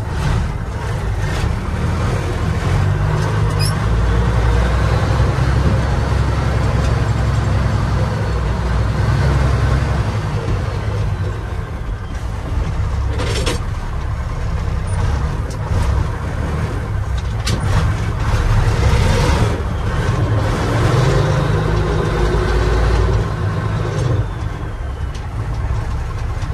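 1981 Mack dump truck's diesel engine running as the truck drives slowly, heard from inside the cab, its low rumble swelling under throttle a few seconds in and again later on. A couple of short, sharp noises come about halfway through.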